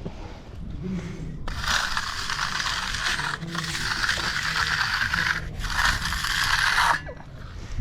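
A hand finishing tool scraped across concrete in three long strokes of about two seconds each, the rasping stopping briefly between strokes.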